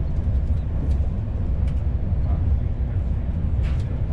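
Steady low rumble of a CP Intercidades passenger coach running along the line, heard from inside the carriage, with a few faint clicks.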